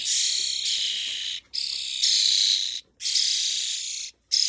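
Young European starlings begging to be fed: four long, noisy, hissing begging calls, each lasting about a second or more, with short breaks between.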